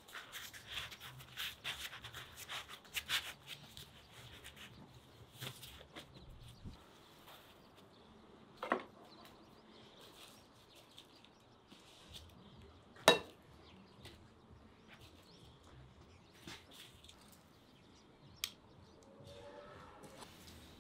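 Soft crinkling and rustling of lavash flatbread and gloved hands as a shawarma wrap is rolled on a wooden board. This is followed by a few sharp clacks from metal tongs working in a bowl of chopped chicken, the loudest about 13 seconds in.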